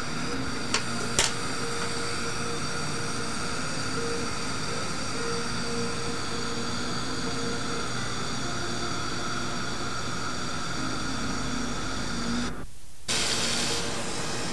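Dental equipment running with a steady whirring hum, with two light clicks about a second in. The sound breaks off briefly near the end and comes back with more hiss.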